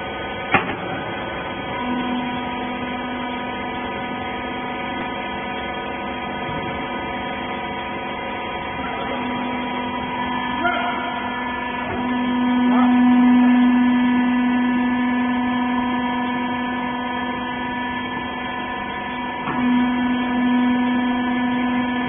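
Hydraulic power unit of a horizontal wiper-rag baler running with a steady hum and whine. It starts about two seconds in, just after a click, swells loudest around the middle and then eases off.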